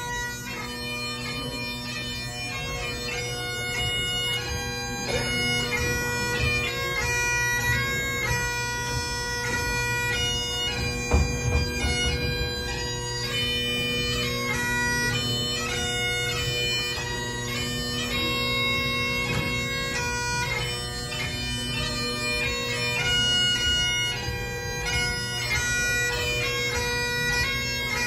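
Great Highland bagpipe playing a fast tune: the chanter's melody notes change quickly over the steady, unbroken hum of the drones. A single low thump sounds about eleven seconds in.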